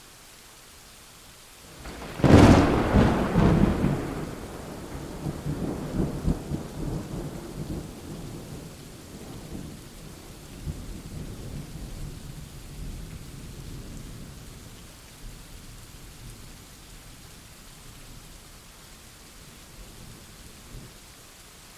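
Steady rain falling, with a sudden thunderclap about two seconds in that rolls on as a rumble and slowly dies away over the next fifteen seconds or so.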